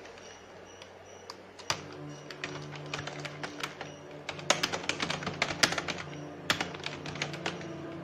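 Typing on a computer keyboard: quick runs of key clicks, busiest in the middle. Sustained organ chords play underneath from about two seconds in.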